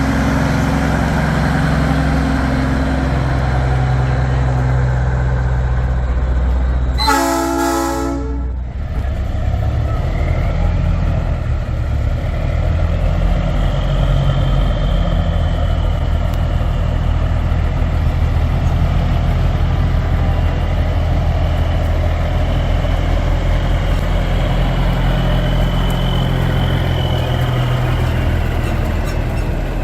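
Heavy diesel truck engines running, with one loud air horn blast about seven seconds in that lasts about a second and a half.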